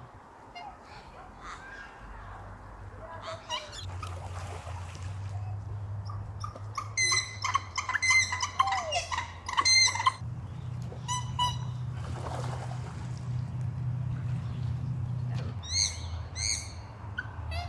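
Wild birds calling outdoors by the water: clusters of short, repeated calls, busiest around the middle and again near the end, over a steady low hum.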